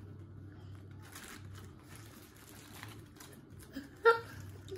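Paper food wrapping crinkling and rustling as it is unwrapped by hand, over a steady low hum. About four seconds in there is one short, loud vocal sound.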